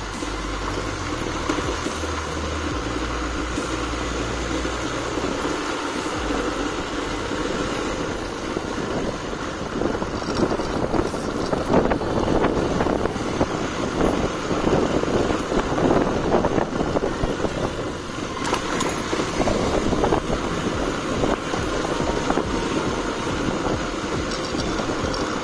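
Motorcycle running along a street, engine and road noise steady, with wind rumbling on the microphone in the first several seconds.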